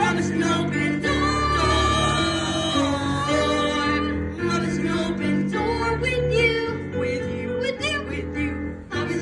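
Young stage performers singing a pop-style show-tune duet joined by the ensemble, over musical accompaniment.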